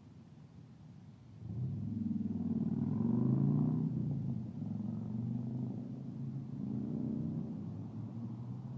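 Car engines of passing road traffic: a low rumble that comes up about a second and a half in and holds, its pitch swelling and easing as vehicles go by.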